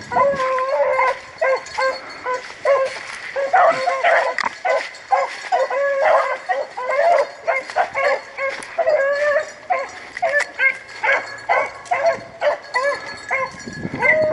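Rabbit dogs baying on a rabbit's trail: drawn-out, overlapping bawls from more than one dog, one after another with hardly a break, the sound of a pack in full chase.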